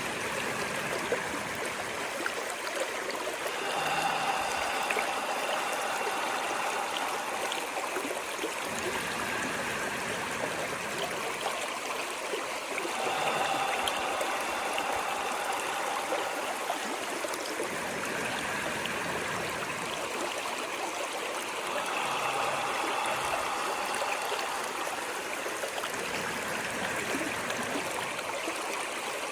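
Running water of a stream, a steady rushing and trickling that swells a little about every nine seconds.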